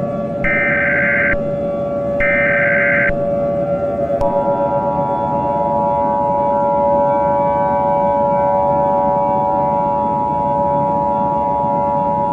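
Emergency Alert System SAME header: the last two of three short buzzy data bursts, a gap, then the two-tone EAS attention signal starting about four seconds in and holding steady for about eight seconds. A steady low drone runs underneath.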